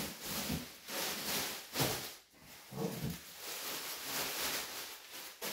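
Packaging being handled and rustled while the resin printer's cover is unpacked: several bursts of rustling with a few soft knocks between them.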